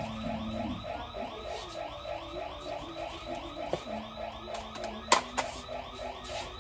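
Background music with a quick, repeating pitched figure of about four notes a second, and a sharp click about five seconds in.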